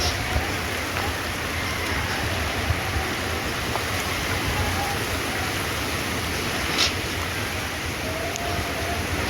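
Heavy rain falling steadily, with a few sharp taps of drops or drips, the loudest about two-thirds of the way through.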